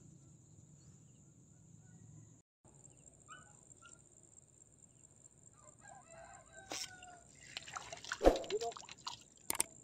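A rooster crowing about seven to eight seconds in, over a steady high-pitched buzz, with a few faint knocks.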